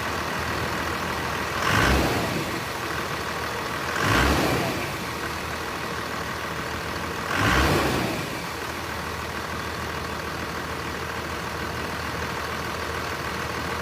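Turbocharged car engine idling, revved in three short blips about two, four and seven and a half seconds in, with pretty much no turbo whistle: the stock turbo still has its silencer ring fitted.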